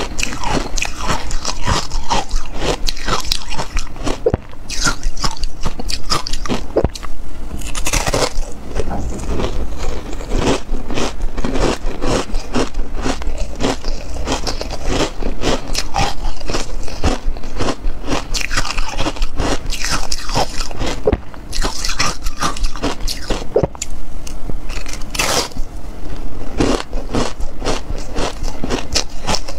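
Ice coated in matcha powder crunching and cracking as it is bitten and chewed, in dense, irregular crunches held close to the microphone.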